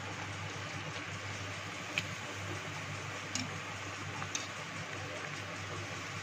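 Besan-battered bread pakora deep-frying in hot oil in a kadhai: a steady sizzle with a low hum underneath and a few sharp clicks, lightly browned and nearly done.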